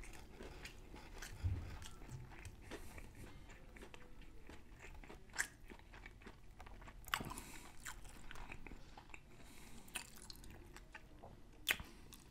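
A person chewing a mouthful of spicy hand-breaded crispy fried chicken sandwich: faint wet mouth sounds with scattered sharp crunches of the fried breading, the loudest near the end.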